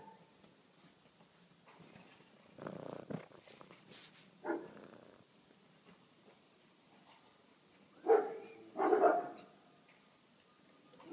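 A black-and-white domestic cat meowing in several short, separate calls, the two loudest close together near the end.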